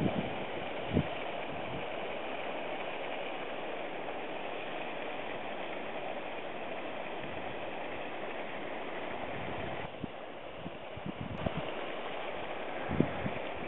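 Steady hiss from a steaming hot-spring vent at the edge of a cloudy hot pool, with wind thumping on the microphone a couple of times.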